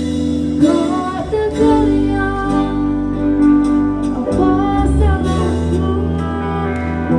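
Music: a song with a singing voice over instrumental accompaniment and a steady bass.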